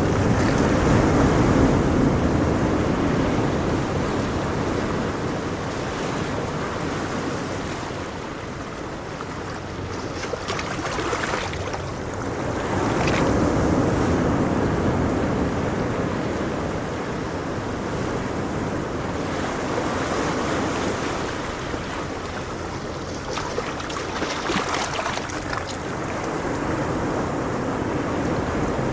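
Ocean waves breaking and washing on the shore, a continuous rushing surf that swells and fades in slow surges.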